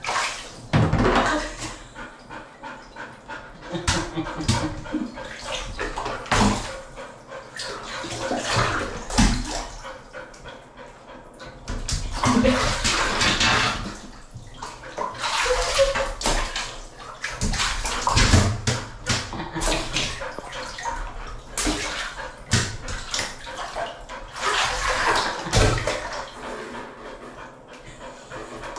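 Water splashing and sloshing in a filled bathtub, in irregular bursts every few seconds.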